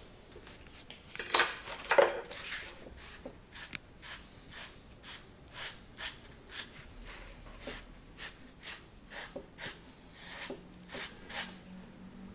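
Hand working the surface of a clay sculpture: a run of short scraping strokes on the clay, two louder ones a little over a second in, then even strokes about two a second.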